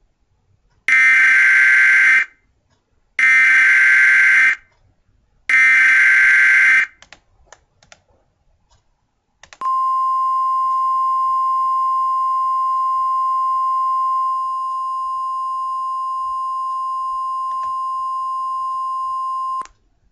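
Emergency Alert System tones: three short bursts of SAME header data, each a little over a second long with about a second between them. After a pause of a few seconds comes a single steady alert tone a little above 1 kHz, held for about ten seconds, a touch quieter in its second half, then cut off.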